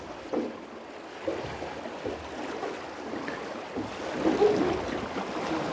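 River current splashing and lapping around a drift boat as it is rowed close past a boulder into a back eddy, louder about four seconds in where the water piles against the rock beside the hull.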